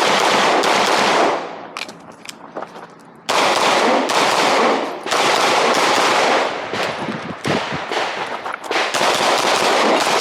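Glock 19 9mm pistol firing fast strings of shots with echo, the shots running together. There is a lull with only a few shots between about one and a half and three seconds in.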